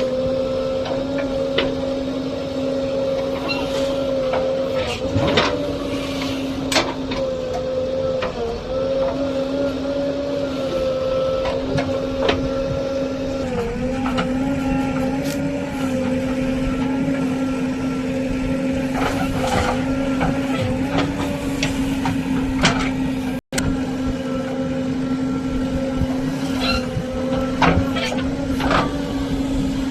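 JCB backhoe loader's diesel engine running steadily under working load, its pitch dipping slightly now and then as the hydraulics take load, with scattered clanks and knocks from the working machine.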